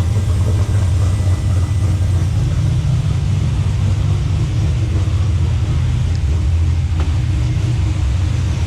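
Turbocharged car engine idling steadily while it warms up, a deep even rumble with no revs.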